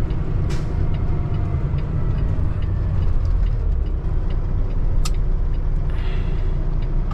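Cummins ISX15 diesel in a Peterbilt 579 semi running steadily at low speed, heard from inside the cab, with a short hiss about half a second in and a sharp click around five seconds.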